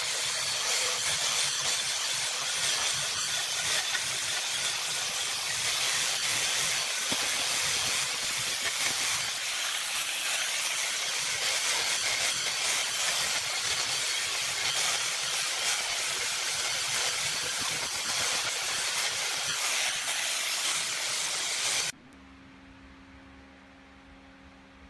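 Electric angle grinder with a sanding disc running steadily against the wooden slats of a louvered door: a continuous high hiss of abrasive on wood. It cuts off suddenly near the end.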